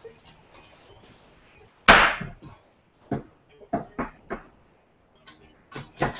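A single loud knock with a short ring about two seconds in, then a kitchen knife chopping an onion on a cutting board in separate, irregularly spaced strokes.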